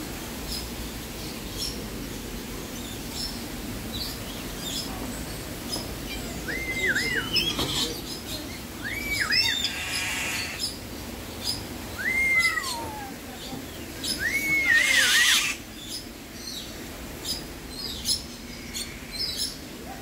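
Parrots calling: short whistles that rise and fall in pitch in quick pairs and triplets, with harsh screeches among them in the middle, over faint scattered chirps.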